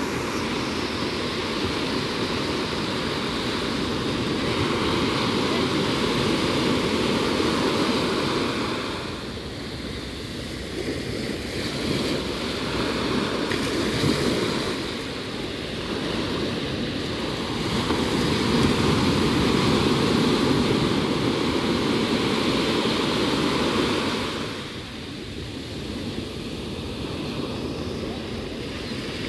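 Small sea waves breaking and washing up a sandy beach: a steady rush of surf that swells and eases, with quieter lulls about ten seconds in and again near the end.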